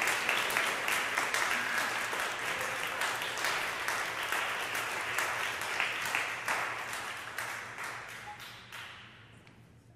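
Audience applauding, the clapping thinning out and fading away over the last few seconds.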